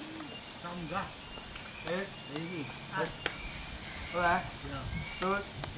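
Crickets chirping steadily and quickly. Short pitched calls recur about once a second over them, and there is one sharp click about three seconds in.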